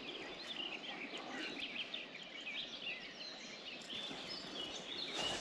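Several songbirds singing and chirping over the steady rush of river water, with a short knock near the end.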